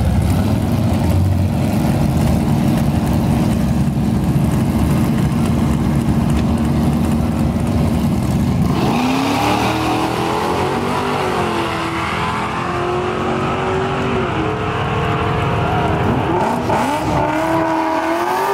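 Race pickup truck's engine running loud at steady high revs for about nine seconds, then dropping and revving up and down while the truck rolls forward to stage for a drag-strip pass.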